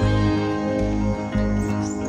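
Background music with plucked strings over a steady low beat, about two beats a second.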